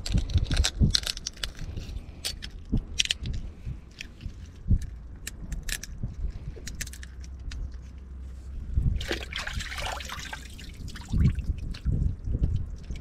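Irregular clicks, cracks and scrapes of hands and a knife working the hard shells of small spiny lobsters, then water splashing and trickling about nine seconds in as the lobsters are rinsed in a tide pool.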